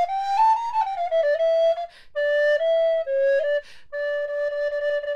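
Resin Ganassi alto recorder in G playing a solo melody: a quick run of notes stepping up and back down, a short phrase, then a long held note. Two quick breaths break the line, about two seconds in and near four seconds.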